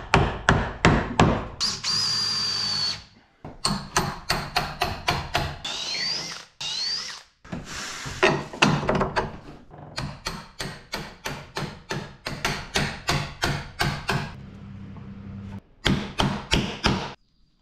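Hammer blows, about three a second in several runs, pounding a bolt through a timber post. Short bursts of a power drill run in between.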